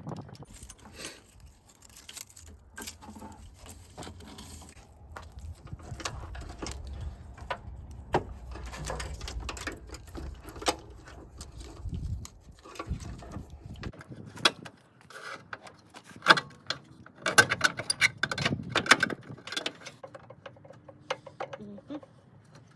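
Irregular clinks and knocks of hand tools and metal parts being handled, busiest in a burst near the end, over a low steady hum that cuts off abruptly a little past halfway.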